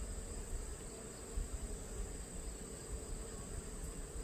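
Honeybees humming in a steady drone from an opened Langstroth hive, over a low rumble.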